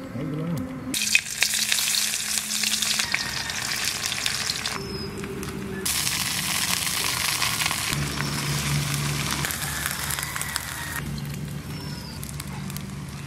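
Food frying in hot oil in a steel wok, a loud sizzle as ginger paste goes into the oil. The sizzle cuts in and out abruptly several times.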